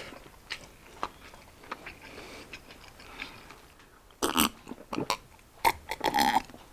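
Mouth sounds of eating: soft, wet clicks of chewing a chicken wing, then, about four seconds in, several louder gulps as water is drunk from a glass mug.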